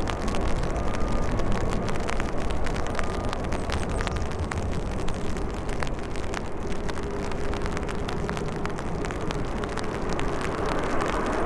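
Airbus A380 jet engines running at taxi power as the airliner rolls along the taxiway, a steady low rumble, with many small ticks of raindrops throughout.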